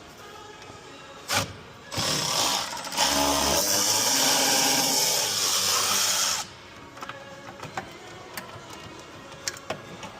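A handheld power tool runs in two spells, one short and one longer, for about four and a half seconds from about two seconds in, spinning out a bolt on the engine's intake side. Light clicks and taps of tools on metal follow.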